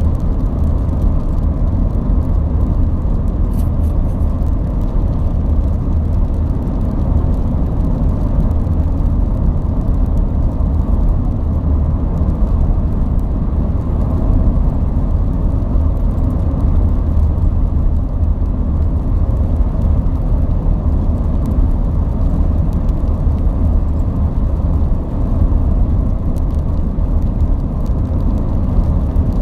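Steady low rumble of a vehicle driving, with road noise and engine hum.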